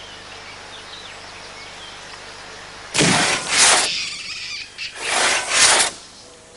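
Forest ambience with faint bird chirps. About three seconds in, a long hand saw starts rasping through a log in slow, regular strokes, about one every two seconds.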